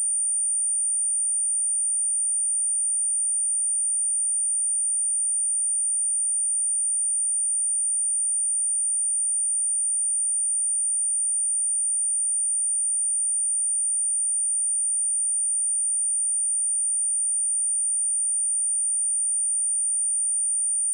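A steady 9057 Hz sine-wave test tone: one pure, high-pitched whistle held at a constant level, used as a speaker test and for shaking water and dust out of a phone speaker.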